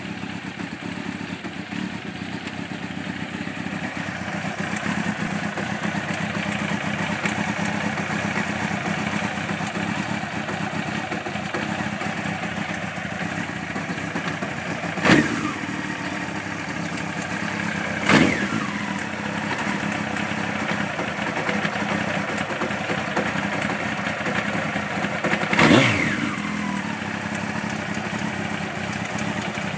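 1992 Honda CBR900RR's inline-four engine idling, with three quick throttle blips that rise and fall: one about halfway through, another three seconds later, and a third near the end. It carries a suspect mechanical noise that the owner wonders may come from the cam chain or the cam chain tensioner.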